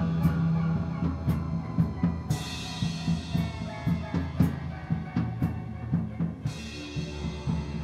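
Background music: a drum kit keeps a beat under held synthesizer notes, with cymbal crashes about two seconds in and again about six and a half seconds in.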